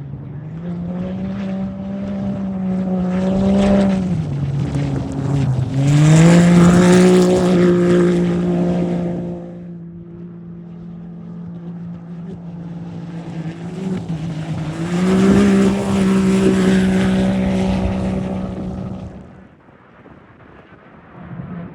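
Turbocharged UTV race engines running hard, a steady pitched drone that dips and climbs again. It swells twice, about 6 and 15 seconds in, with a rushing noise over it, then fades near the end.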